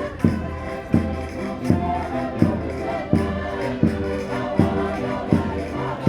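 Concertinas playing a Minho folk dance tune in sustained chords, over a steady thumping beat about every three quarters of a second.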